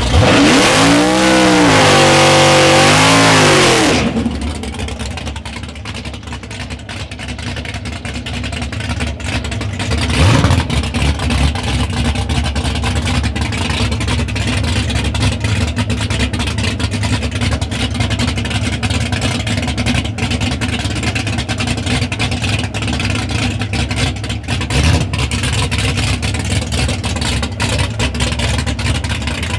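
2016 Mopar Drag Pak drag car's V8 running loud under hard revving for about four seconds, its pitch wavering up and down. It then drops to a lower, lumpy rumble, with a short rev blip about ten seconds in.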